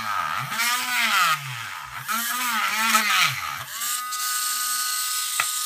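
Handheld electric rotary tool cutting through a hard plastic toy car shell. Its motor whine sinks and climbs back in pitch over and over as the bit cuts, then runs at a steady pitch near the end.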